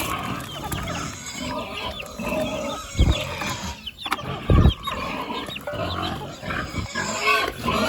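Pigs grunting and squealing in short calls. Two low thumps come about three seconds and four and a half seconds in.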